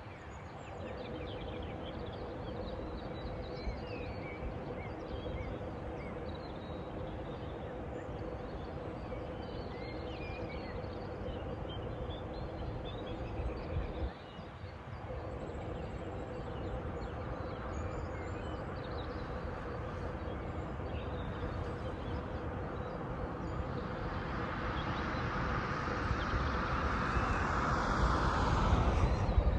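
Outdoor evening ambience: small birds chirping in the first half over a steady low hum, with a rushing noise that swells over the last few seconds.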